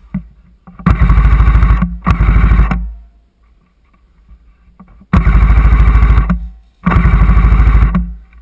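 Airsoft electric gun firing four bursts on full auto, each about a second long, with a rapid even buzz of shots. Two bursts come close together, then a pause, then two more.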